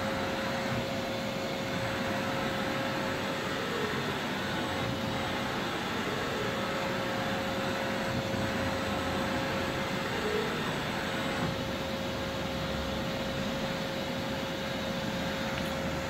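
Doosan DNM400 vertical machining center running while its spindle head is jogged along the Z axis: a steady mechanical hum with a constant mid-pitched whine.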